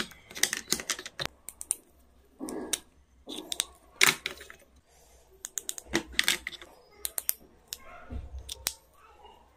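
Pencils and a marker being handled and set into a plastic pencil box: irregular clicks and taps of the items against the case, with a brief soft rustle about two and a half seconds in.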